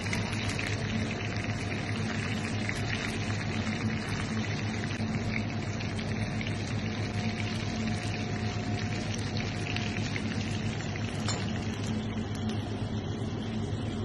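Jewfish steaks sizzling and bubbling as they fry in hot oil in a shallow clay dish, a steady crackle. A steady low hum runs underneath.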